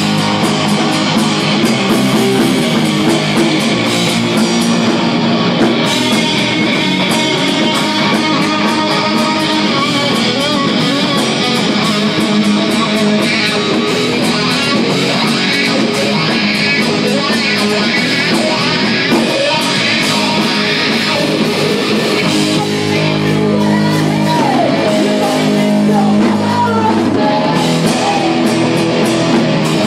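Live hard rock band playing loud, led by a distorted Les Paul electric guitar whose lead line bends up and down in pitch over drums.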